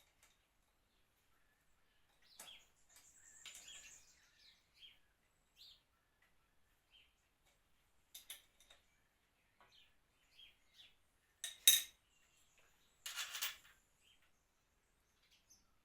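Light metallic clinks and taps of hand tools and small steel parts being handled while fitting exhaust manifold studs, with a sharp click just before twelve seconds in and a short clatter just after.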